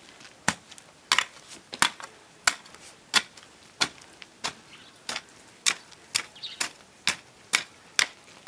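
Hand hoe chopping into garden soil to loosen it, a steady rhythm of sharp strikes about one and a half a second.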